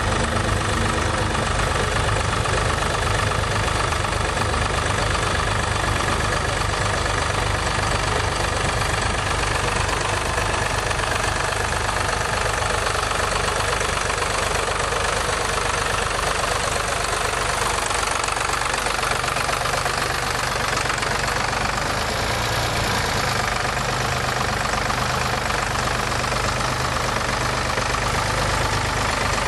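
Ford 4000 tractor engine running steadily while pulling a plough.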